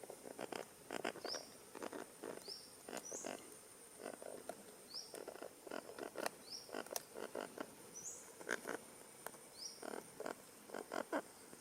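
Parrot chicks giving harsh, rasping calls, in clusters of a few short pulses about once a second.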